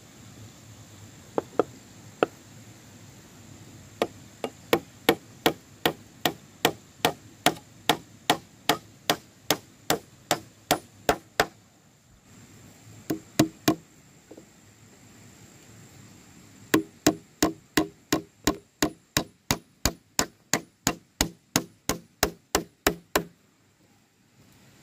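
Hammer blows, struck steadily about three times a second in two long runs with a short pause between, and a few scattered blows near the start.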